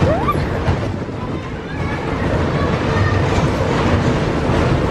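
Waltzer ride in motion: a continuous rumble from the spinning car, with wind buffeting the microphone and fairground music mixed in. A short rising tone sounds near the start.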